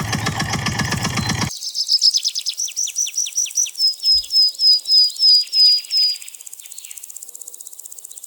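A vehicle engine running with an even pulse, cut off sharply about a second and a half in. A bird's song follows: a rapid run of about fifteen short, high chirps that slow slightly and end about six seconds in.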